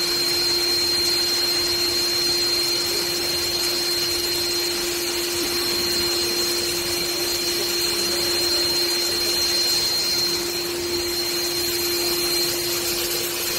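Vacuum cleaner of a SpaceVac high-level cleaning system running steadily, drawing air through the nozzle on its carbon-fibre pole at a ceiling vent grille, with a steady low hum and a high whine.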